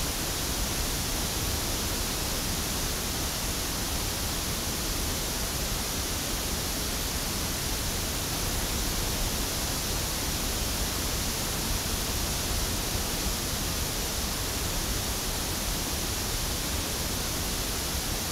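Steady pink-noise test signal from a loudspeaker, picked up by an Audix OM7 dynamic microphone and played back as an even, unbroken hiss.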